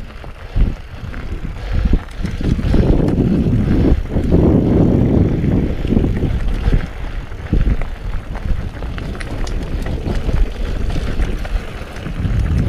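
Mountain bike ridden fast over a dirt trail: a loud, uneven rumble of tyre and wind noise, with scattered knocks and rattles as the bike goes over rough ground.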